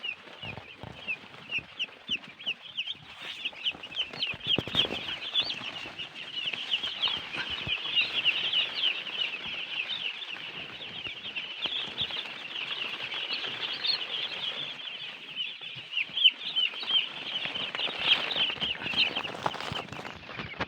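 A large flock of day-old broiler chicks peeping continuously, many short high cheeps overlapping, with occasional faint rustles and knocks underneath.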